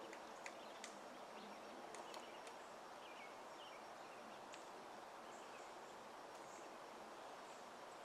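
Hairy woodpecker pecking at a tree trunk: a handful of faint, sharp taps at irregular spacing, most of them in the first half, over a steady background hiss.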